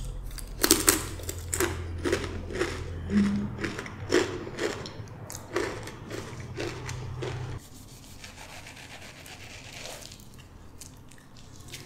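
Crisp blue Takis rolled tortilla chips being chewed close to the microphone, crunching about twice a second for roughly seven seconds. Then quieter scraping as a knife cuts into a mango.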